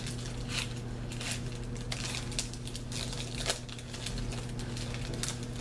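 Trading-card pack wrapper crinkling and cards being handled and slid apart: a run of short rustles and crackles over a steady low hum.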